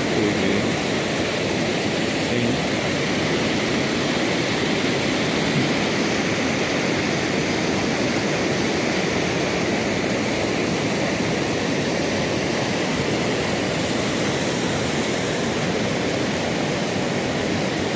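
Steady rush of river water tumbling over rocks or a small falls, an even hiss with no breaks.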